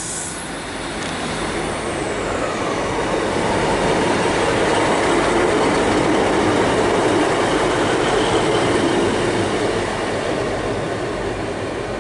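A Class 150 Sprinter diesel multiple unit passing along the platform: diesel engine running and wheels on the rails, growing louder to a peak about halfway through, then easing off as it moves away. In the first few seconds a high whine falls in pitch.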